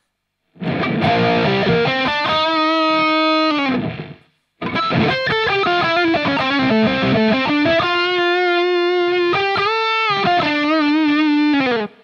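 Electric guitar played through overdrive and fuzz pedals: two distorted phrases with long sustained notes and vibrato. Between and after the phrases the sound drops to dead silence, as the MXR Smart Gate noise gate shuts off the hiss of the distortion.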